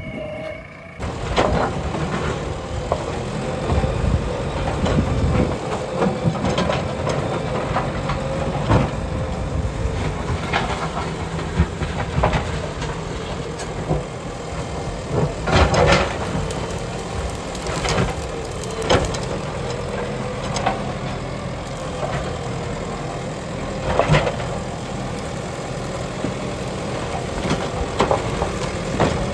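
JCB digger's diesel engine running steadily under a wavering whine, with repeated sharp clanks and knocks. The sound starts abruptly about a second in.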